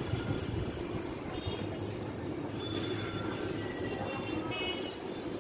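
Wind rumbling steadily on the microphone, with a few short high bird chirps over it.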